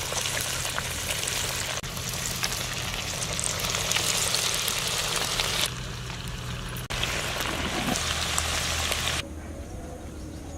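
Cornflake-coated chicken pieces deep-frying in hot oil in a kadhai: a steady sizzle with fine crackling. The sizzle drops away abruptly a couple of times and comes back.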